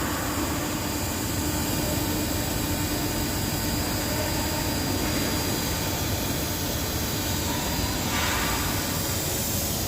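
Welding arc on grade 7 titanium giving a steady hiss and hum, with a brief louder patch about eight seconds in.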